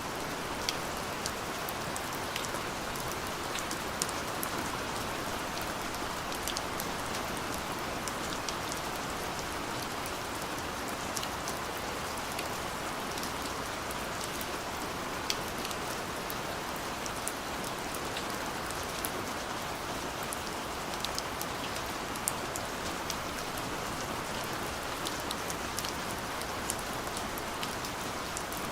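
Steady light rain falling, with a continuous hiss and scattered sharp ticks of individual drops striking a surface.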